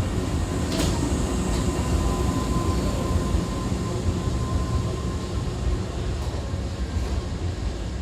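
Hankyu 5100 series electric train rolling slowly into the platform on arrival: a steady low rumble with a few sharp clicks and, for the first few seconds, a faint thin whine.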